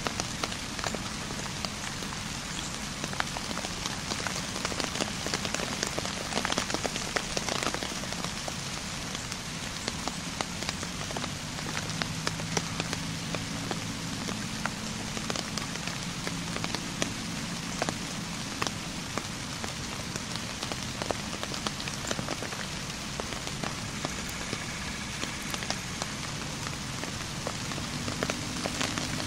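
Steady rain falling, a constant hiss with many small sharp drop ticks scattered through it.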